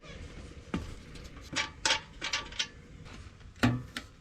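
Scattered sharp clicks and knocks of hard parts being handled, about a dozen, with the loudest knock near the end.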